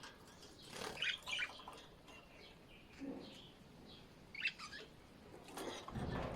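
Small birds chirping in short, scattered bursts: a cluster about a second in and another about four and a half seconds in.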